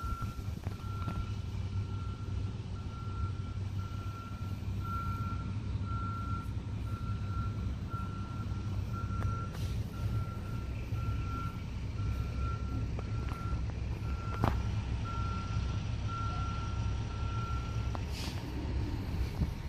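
A high electronic beep repeating about twice a second over a steady low engine rumble; the beeping stops near the end.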